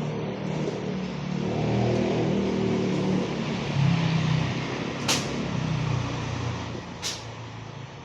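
A motor vehicle engine running, its pitch shifting, then fading near the end, with two sharp clicks about five and seven seconds in.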